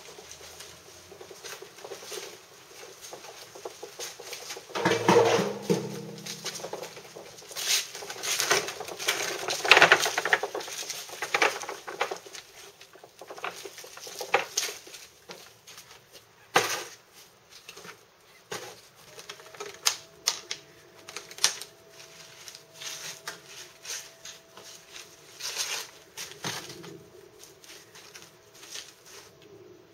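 Irregular clatter and knocks of clay flowerpots being handled and set onto a flatbed hand cart, with the cart rattling as it is pulled over paving. There is one heavy knock about five seconds in and a busy run of clatter a few seconds later.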